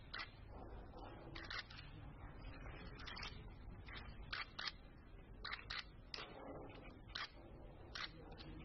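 Camera shutters clicking repeatedly and irregularly, often two clicks in quick succession, over a faint murmur of voices.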